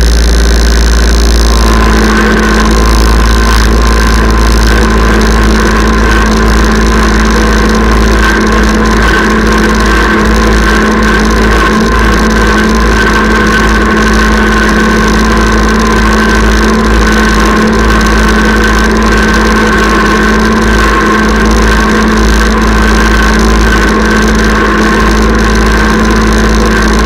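Kubota tractor's diesel engine running steadily under load while towing a chain harrow, with a steady whine over the engine note; the pitch steps up slightly about two seconds in.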